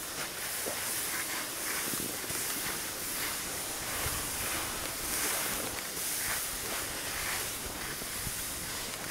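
Skis sliding and scraping over packed snow while being towed up a surface-lift track: a steady hiss that swells briefly about once a second.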